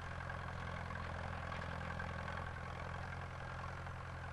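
Tractor engine running steadily at an even, unchanging pitch.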